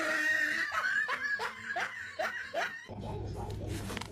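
A person laughing in short repeated bursts of about three a second, which stop about three seconds in and give way to a steady low hum.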